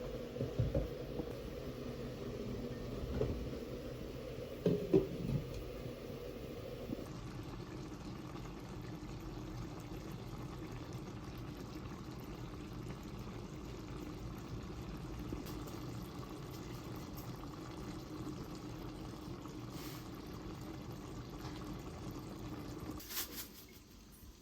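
A steady rush of water, with a few light knocks in the first five seconds; it stops just before the end.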